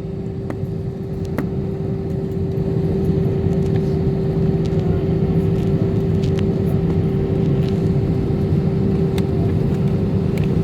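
Airbus A320 jet engines running: a steady low rumble with a constant hum, growing a little louder about two seconds in and then holding steady.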